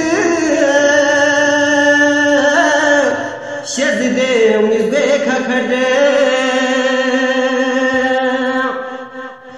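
A man singing a Balti qasida unaccompanied, holding long, slightly wavering notes, with a short break for breath about three and a half seconds in; the voice fades away near the end.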